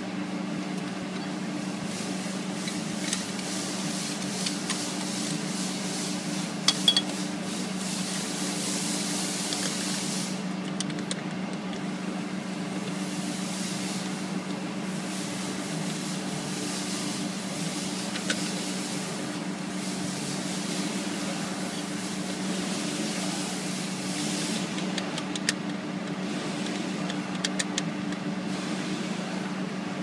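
A steady low mechanical hum with a hiss of background noise, broken by a few sharp clicks about a quarter of the way in and again near the end.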